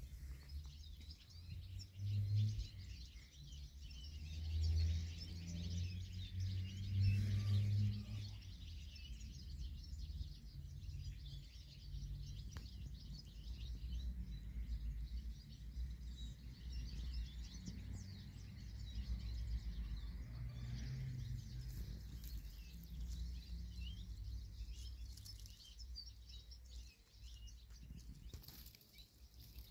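Outdoor ambience: faint, scattered bird chirps over a low, uneven rumble that is a little louder in the first several seconds.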